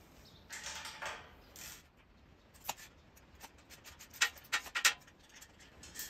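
Scattered metal clicks and taps of a socket and Allen key working a bolt loose on the steel dolly frame, with a quick run of clicks about four seconds in. A soft rustle comes about half a second in.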